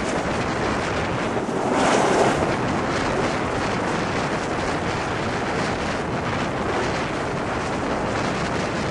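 Royal Navy Sea King search-and-rescue helicopter hovering low and close, its rotor and engines making a loud, steady rush, with rotor downwash buffeting the microphone. A louder surge of wind about two seconds in.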